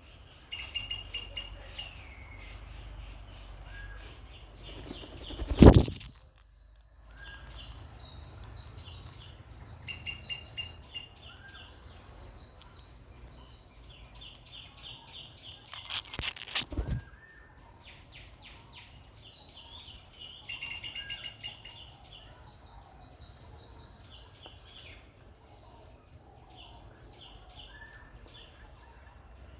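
Small birds chirping in rapid repeated high calls over a steady high background hum, with two loud knocks, one about six seconds in and one about seventeen seconds in.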